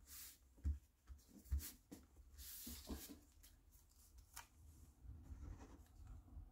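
Hands handling paper and card: soft rustling and rubbing as a strip of designer paper is pressed and smoothed down onto a card base, with two soft thumps in the first two seconds and a longer rustle a little past two seconds.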